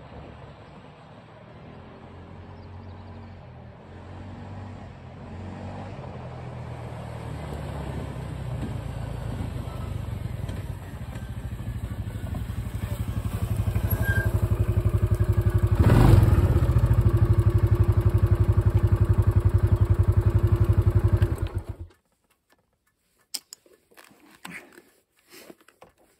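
Quad bike (ATV) engine approaching along a dirt track, growing steadily louder over about sixteen seconds. It runs steadily close by, then is switched off and stops abruptly about 22 seconds in, leaving a few faint clicks.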